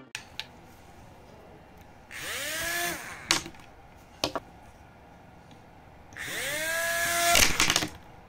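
Small electric motor of a homemade matchbox toy helicopter spinning up its propeller twice, about two seconds in and again about six seconds in. Each run is a whine that rises quickly, holds for about a second and cuts off, followed by a few sharp knocks.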